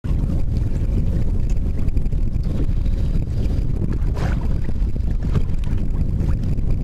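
Wind buffeting the microphone: a steady low rumble with a faint hum, the sound of open water heard from a boat.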